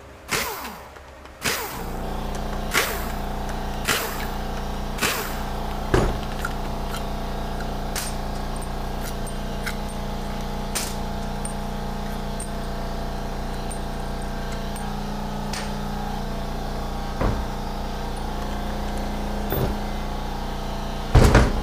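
Shop air compressor kicks on about a second and a half in and runs with a steady hum. Scattered sharp clicks and knocks of tools and metal parts sound over it as Torx bolts are taken out of a transmission solenoid pack.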